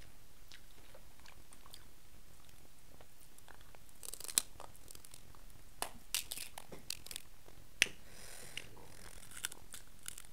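Close-up eating sounds: king crab shell being cracked and picked apart by hand, mixed with chewing. Light clicks at first, then a run of sharp cracks and crackles from about four seconds in, with the sharpest snaps about four and eight seconds in.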